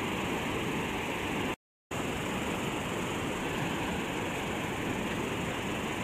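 Steady rush of river water pouring over a spillway. The sound cuts out completely for a moment about a second and a half in.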